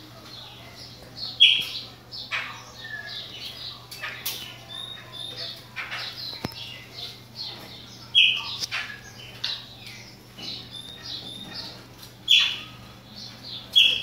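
Chopi blackbirds (pássaros-pretos) calling: a steady run of short, clear whistled notes and chirps, broken by a few loud, sharp notes about a second and a half in, at about eight seconds, past twelve seconds, and right at the end.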